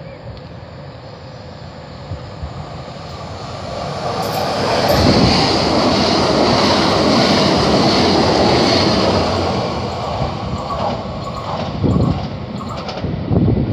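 Leonardo Express electric train passing through the station at speed without stopping. Its running noise grows over the first few seconds, is loudest for about four seconds with a high hiss as the cars sweep past, then fades as it pulls away, with a few sharp knocks near the end.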